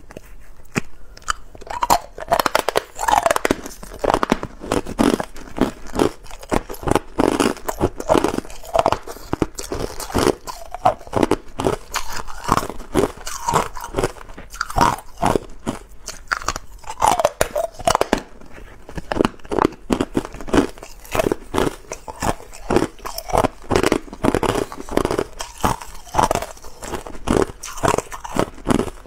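Hard, clear ice cubes being bitten and chewed: a quick, irregular string of sharp crunches and cracks.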